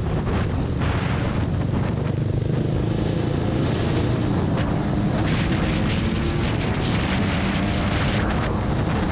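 Off-road vehicle engine running steadily under load while driving over rough ground, with knocks and rattles from the bumpy track and wind buffeting the microphone.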